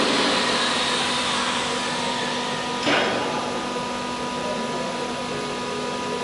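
ATC CNC wood router running with a steady machine whine and a steady hum. A faint high tone falls in pitch over the first two seconds, and a short burst of noise comes about three seconds in.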